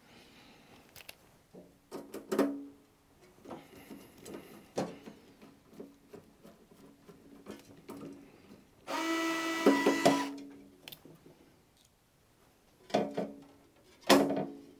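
Small cordless electric screwdriver running in short bursts as it backs out the screws holding the battery case's front panel. The longest run lasts about a second and a half near the middle, and clicks and knocks from handling the case come between the runs.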